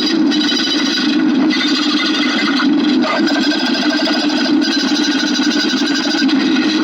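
Rapid, continuous clicking, so dense that it blurs into a steady buzzing texture.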